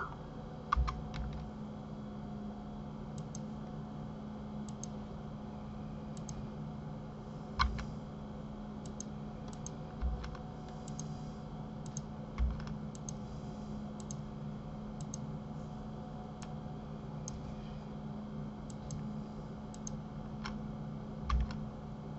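Scattered clicks of a computer keyboard and mouse, with a few louder taps among them, over a steady low hum.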